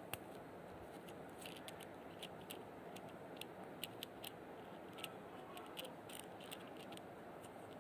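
Hands pasting a torn paper page with homemade glue on a hard stone floor: faint, scattered light clicks and taps about once or twice a second over a steady low hiss.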